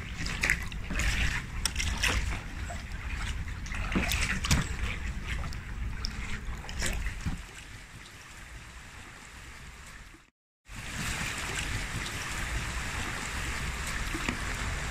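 Paddle blades splashing and water sloshing around an inflatable packraft, in short irregular strokes over a low rumble of wind on the microphone. After a sudden cut about ten seconds in, a steady rush of moving river water.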